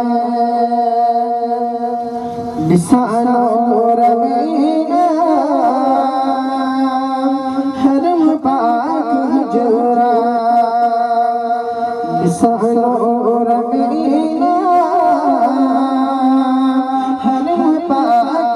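A man singing a devotional song into a microphone through a PA system, with long, wavering, ornamented held notes. Two brief sharp knocks cut in, about 3 seconds and 12 seconds in.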